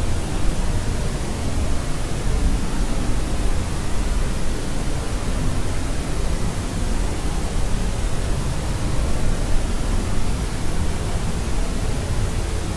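Steady white noise: an unbroken rushing hiss, heaviest in the low end, with no change in level or pitch.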